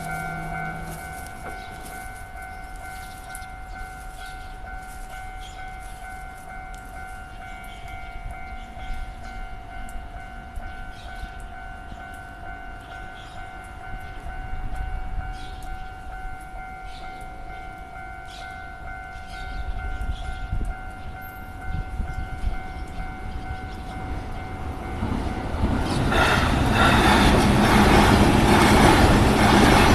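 A level-crossing warning bell rings with steady tones. A train is heard coming closer from about 20 seconds in and passes the crossing loudly near the end.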